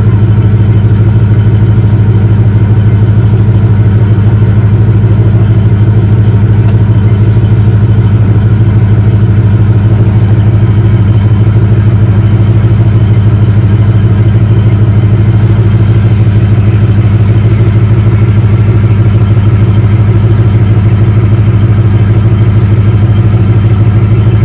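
The 5.3-litre LS V8 (Corvette cam and heads, headers) swapped into a 1949 Chevy 3100 pickup, idling steadily and loud, with an even low exhaust note and no revving.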